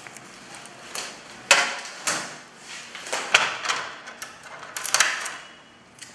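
Plastic covers and trays of an HP LaserJet M436nda copier being handled and opened: a few short scraping swishes with sharp plastic clicks.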